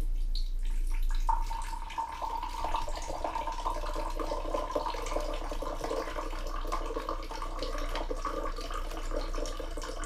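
Water pouring in a thin stream from a bottle into a glass, a steady splashing trickle that becomes fuller about a second in.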